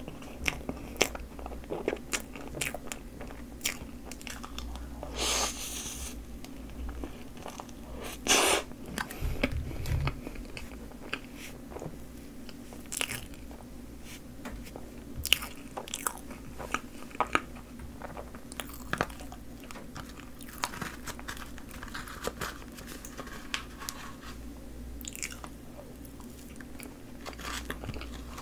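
Close-miked eating sounds: a person chewing a mouthful of whipped cream with Choco Pie pieces, with many short, sharp mouth clicks and smacks. Two longer rustling noises come about 5 and 8 seconds in.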